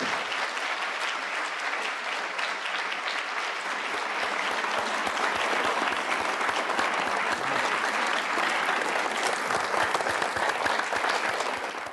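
Audience applauding steadily after a talk, a dense patter of many hands clapping. It grows a little fuller about four seconds in and drops away at the very end.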